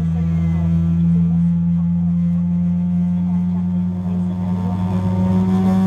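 Steady low hum inside the cabin of a Boeing 777-300ER on the ground, made of two deep tones, with its pitch edging up slightly near the end.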